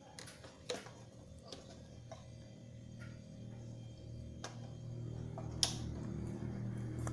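Scattered light taps and clicks of a hand and battered banana slices against a plastic tray and bowl, with a low hum that builds in the second half.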